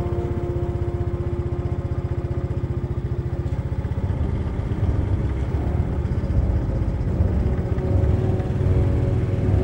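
Single-cylinder four-stroke engine of an Italika XT110RT motorcycle running while riding, heard from the rider's seat as a dense low pulsing. It gets louder and rougher from about halfway through.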